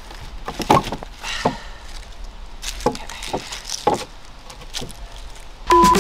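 A handful of irregular knocks and clunks as a wooden box frame and boards are handled and set down, with light rustling between them. Electronic music starts loudly near the end.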